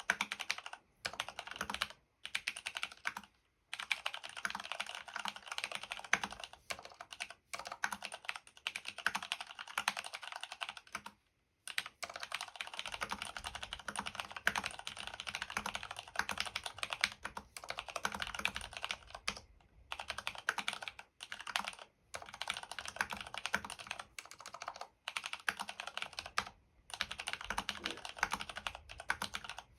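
Fast continuous typing on a DURGOD Fusion mechanical keyboard with lubed Cherry MX Brown switches and foam-dampened case: dense runs of key clicks broken by brief pauses.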